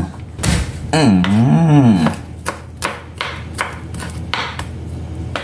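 Kitchen knife chopping garlic cloves on a wooden cutting board: a quick run of knocks, about three a second, through the second half. A short wavering hum from a voice comes about a second in.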